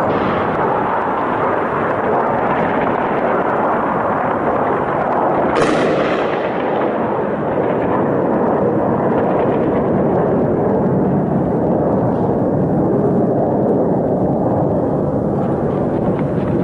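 Heavy, continuous gunfire crackling across a city, with one sharp blast about five and a half seconds in that dies away.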